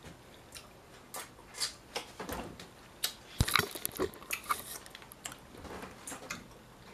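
Close-miked eating sounds: irregular chewing and mouth clicks, mixed with knocks of hands reaching across the table, loudest a little past three seconds in.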